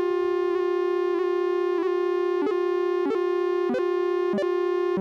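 Double Knot v3 analog synthesizer holding a steady, buzzy oscillator drone. Over it, clock pulses passed through its VCA circuit and gated by the shift register make a regular click about every 0.6 s. The clicks grow stronger over the first couple of seconds.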